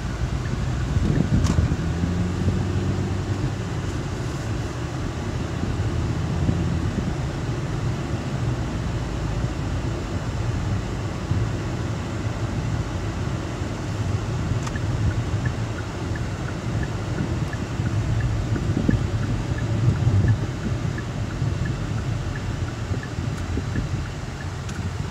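Steady road noise and engine hum inside a moving car's cabin, a low rumble throughout. A faint, regular ticking comes in about halfway through.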